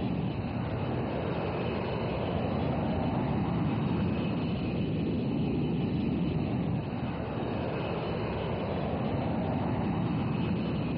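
Jet aircraft engines running, a steady low rumbling noise that dips briefly about seven seconds in.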